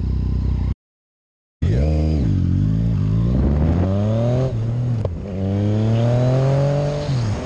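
Motorcycle engine running, then accelerating away through the gears: the revs climb and drop back at each upshift, three times. The sound cuts out completely for about a second early on.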